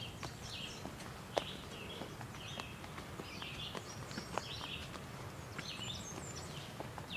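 Red-eyed vireo singing, short phrases repeated with brief pauses between them. Scattered sharp clicks come through as well, one louder about a second and a half in.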